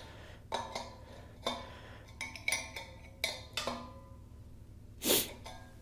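A steel wrench clinks and knocks against the brass adapter and valve of a steel propane cylinder as the fill adapter is tightened. There are about half a dozen short metallic clinks, some leaving a brief ring, then one short noisy swish near the end.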